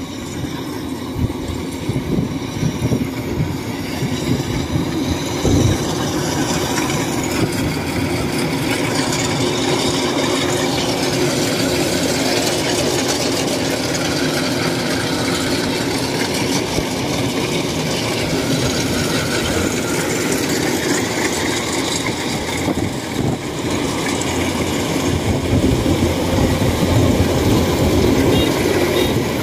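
Tracked rice combine harvester running steadily as it drives and cuts through a ripe paddy, its engine and machinery making a constant rumble. It grows louder near the end as it comes close.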